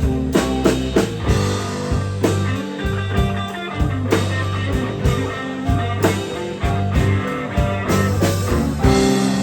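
Live blues band playing a slow blues: electric guitar lead over bass and drum kit, with steady drum hits and no singing.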